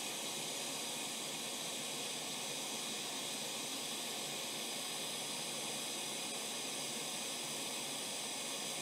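Hot air rework station blowing a steady hiss of hot air through its nozzle onto a newly placed surface-mount chip, melting the solder under its pins.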